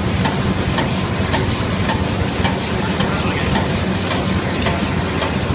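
Yii Lee film laminating machine running: a steady mechanical hum with a dense, irregular rattle of small ticks.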